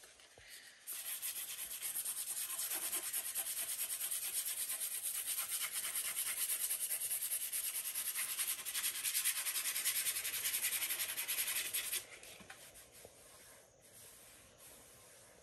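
Hand sanding of a cured resin topcoat with 120-grit sandpaper, in quick back-and-forth strokes along the edge of a resin-coated canvas, to smooth away bumps and dried air bubbles before recoating. The sanding starts about a second in and stops about twelve seconds in.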